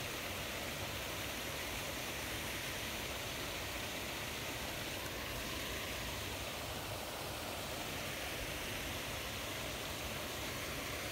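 Steady outdoor ambient hiss, even and unchanging, with no distinct event standing out.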